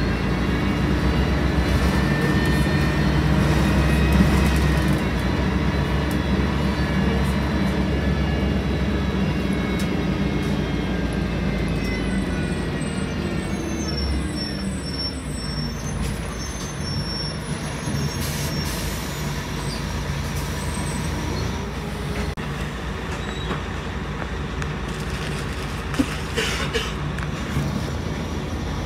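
Scania L113CRL city bus heard from inside the cabin: its engine and drivetrain run under way with a steady drone and whine. About halfway through the whine falls in pitch as the bus slows, then rises briefly again. A single sharp click sounds near the end.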